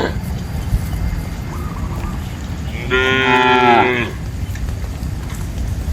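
A cow moos once, a pitched call about a second long, starting about three seconds in. A faint, short, higher call comes about a second and a half in.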